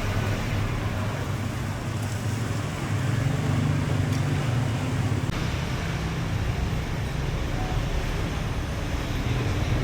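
Street traffic: vehicle engines running with a steady low hum, swelling a little about three seconds in.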